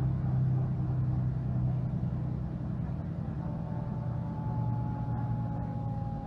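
Mercedes-Benz Citaro G articulated bus's OM457hLA straight-six diesel running with a steady low hum that slowly grows quieter. From about halfway a thin whine joins, drifting slightly down in pitch.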